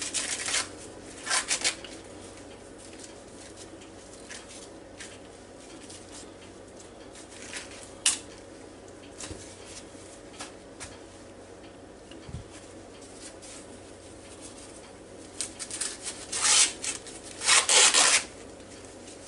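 Fresh corn husks being pulled and torn off the ears by hand: crisp rustling and ripping of the green leaves in irregular bursts, loudest near the end.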